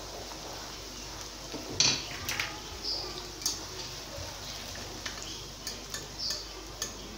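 Wire slotted spoon scraping and clinking against a non-stick kadai as fried okra is scooped out, a scattering of light clicks and scrapes.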